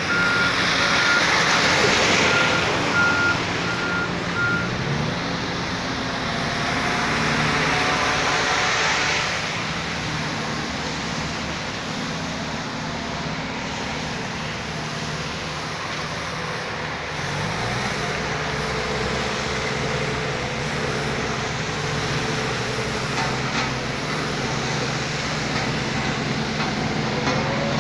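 Diesel engines of road-paving machinery running, with a vehicle's reversing alarm beeping steadily for the first few seconds. The engine note climbs twice, about five seconds in and again near the middle, and there are two swells of hiss early on.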